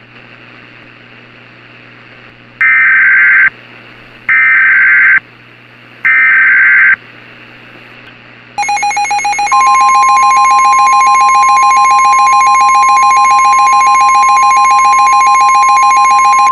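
Emergency alert data header: three short, loud bursts of screeching digital tones, each about a second long. About eight and a half seconds in, a pulsing electronic alert tone starts, and a second later a steady single-pitch weather-radio warning tone joins it and holds.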